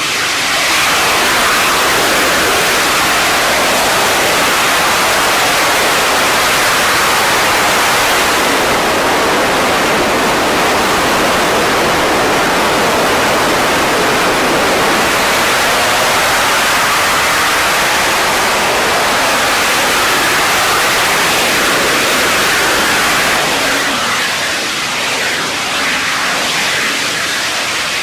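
The liquid-fuelled rocket engine of a Masten Xombie VTVL vehicle firing through a flight: a loud, steady rushing roar that eases slightly in the last few seconds as the vehicle comes down to land.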